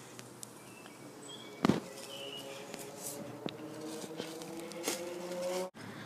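Faint buzzing hum of a flying insect, drifting slightly up in pitch, with short bird chirps. A sharp knock comes about a second and a half in, and later a few light footsteps crunch on dry forest leaves.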